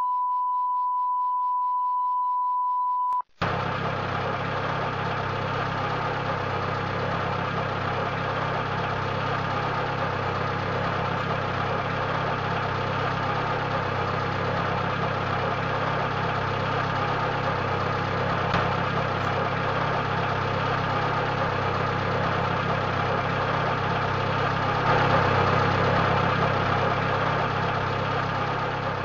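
A steady 1 kHz beep tone for about three seconds that cuts off abruptly, then an engine running steadily at idle, swelling a little near the end.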